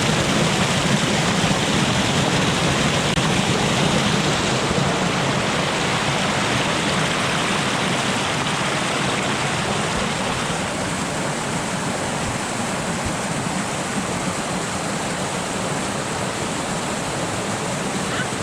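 Rushing river water pouring over rocks, a steady rush that eases slightly after about ten seconds.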